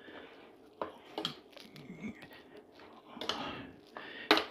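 A spoon stirring raw chicken pieces in a wet egg-and-spice marinade in a bowl: soft squelching, with a few sharp clicks of the spoon against the bowl, the loudest near the end.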